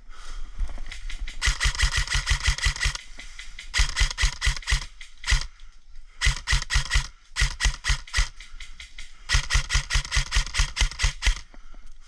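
Airsoft gun firing close by in several strings of rapid shots, about seven a second, with short pauses between the strings.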